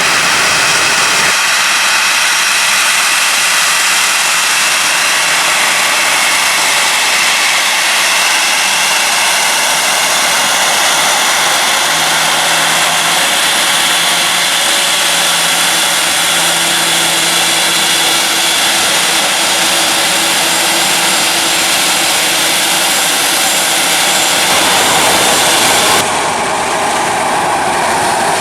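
Jet airliner engines at close range: a loud, steady rushing noise with a faint steady whine, dropping abruptly a little before the end.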